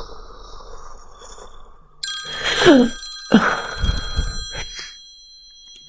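Mobile phone ringing with a high, bell-like ringtone that starts about two seconds in and keeps ringing.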